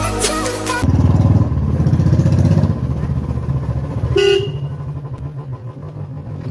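Royal Enfield Bullet motorcycle's single-cylinder engine running with a steady low thump, and one short blast of its aftermarket Roots horn about four seconds in.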